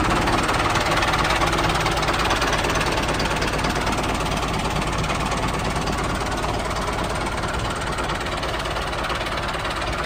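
Small engine of a mini tractor running steadily.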